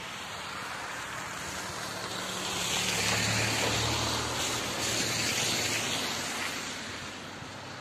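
A car driving past on the road, its tyre noise and engine hum swelling to a peak about three to four seconds in and then fading away.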